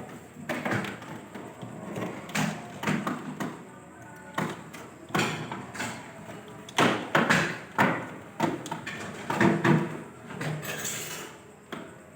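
A series of irregular knocks and clatters, with indistinct voices in between.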